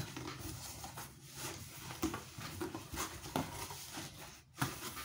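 Cardboard box and its packaging being handled and opened: irregular rustling with several light knocks and taps.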